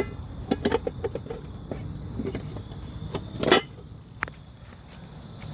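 Scattered short clicks and knocks with one louder clatter about three and a half seconds in, over a steady low rumble.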